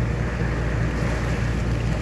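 Steady rushing noise of a heavy rain downpour, with a constant low rumble underneath.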